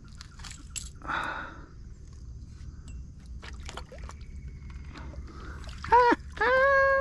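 Kayak paddle dipping and stirring shallow water, with a splash about a second in and small clicks and knocks of the paddle against the kayak. Near the end a loud, held vocal sound from a person's voice.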